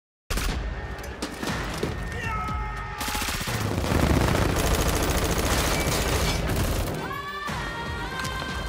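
Sustained automatic rifle fire in a TV drama's soundtrack, rapid shots running together, heaviest from about three to seven seconds in. Music plays underneath and comes forward near the end.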